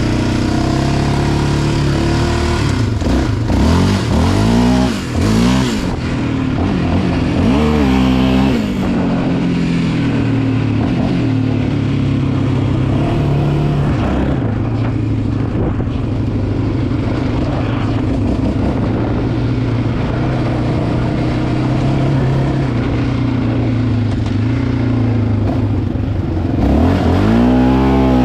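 Yamaha Raptor 700R ATV's single-cylinder four-stroke engine running on the trail, revved up and down several times in the first eight seconds, then held at a steady pitch, revving up again near the end.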